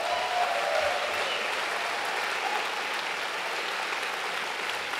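A large audience applauding steadily at the end of a talk.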